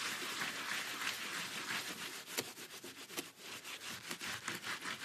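Dry paper towel rubbed hard over grout-covered glass mosaic: a steady rasping rub that turns into quick, uneven back-and-forth strokes about two seconds in. This is the dry-method grout clean-up, wiping excess grout off the glass without a sponge.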